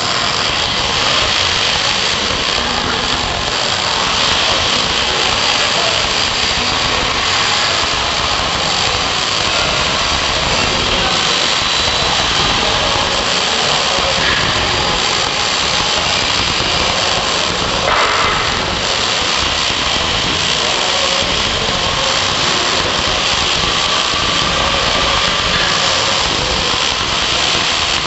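MIG welding arc on 1.0 mm wire at 18.5 volts and wire speed 155, crackling steadily without a break while a vertical weld is run.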